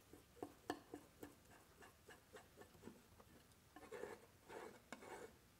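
Palette knife mixing thick oil paint on a palette, faint: a run of light taps and clicks, then three short smearing scrapes near the end.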